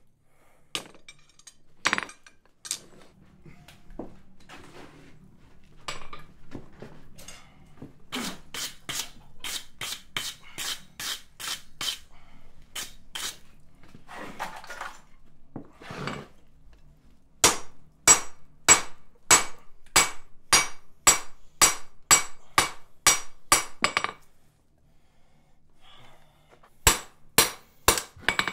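Hand hammer striking red-hot steel on an anvil while forging a stonecutter's chisel: a few scattered knocks, then runs of steady blows about three a second, each with a metallic ring. A brief scrape comes in the middle, and a faint low hum sits underneath.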